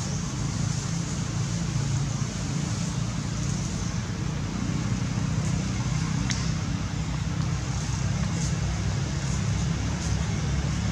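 Steady outdoor background rumble with an even high hiss and a few faint ticks; no monkey calls.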